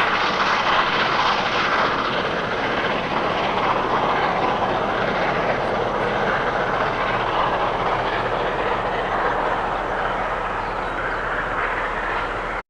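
Steam locomotive J1211, a New Zealand J-class, working its excursion train past, a loud steady rush of exhaust and running noise that slowly eases as it draws away.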